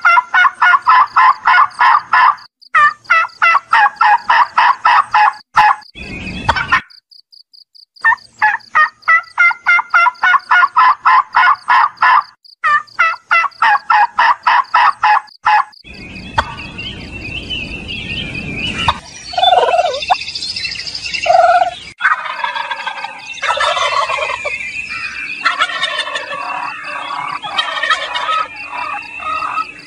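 Domestic turkeys gobbling: long runs of quick, rapidly repeated notes, broken by a short pause about six seconds in. From about halfway the calling turns to a noisier mix with a few lower calls.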